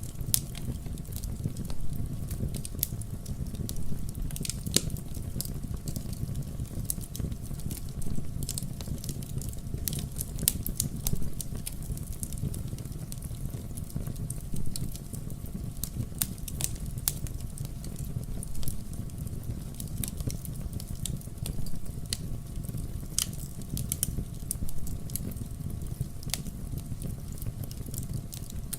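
Wood fire burning in a fireplace: a steady low rumble of the flames with frequent irregular sharp crackles and pops of the burning logs.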